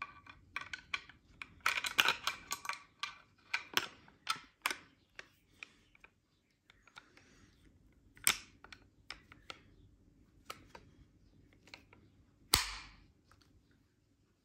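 Handling noise from a 1970 J.P. Sauer & Sohn side-by-side double-barrel shotgun: its metal and wood parts clicking and knocking in the hand. There is a quick cluster of clicks in the first few seconds, then single sharp clicks a couple of seconds apart, the loudest near the end.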